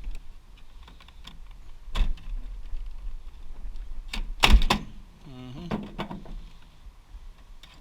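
Clatter and sharp knocks of hard parts being handled while server hardware is stripped for scrap. There are two strong knocks, about two seconds and four and a half seconds in, the second the loudest, with smaller clicks between them.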